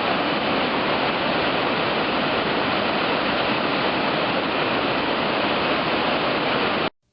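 Whitewater rapids rushing steadily, cutting off suddenly near the end.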